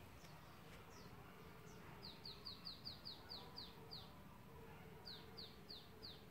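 A small bird calling faintly: a quick run of short, falling high notes, about four a second, then after a pause a shorter run of about four more.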